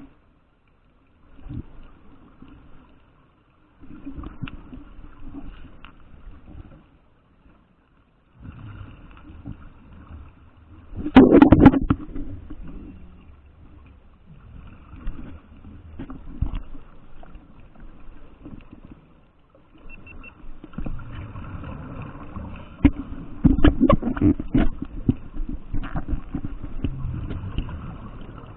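Underwater scuba sounds: a diver's exhaled bubbles gurgling and rumbling in irregular bursts, with short quiet gaps between breaths. The loudest burst comes about eleven seconds in, and a longer run of bubbling comes near the end.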